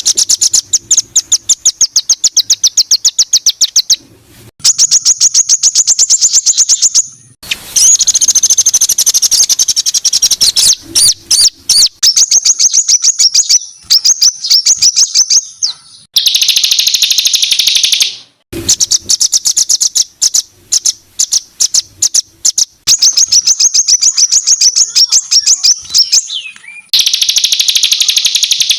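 Songbird song of harsh, high-pitched rapid-fire notes ('tembakan kasar'), repeated many times a second in runs of a few seconds, broken by short abrupt gaps where the recording is cut.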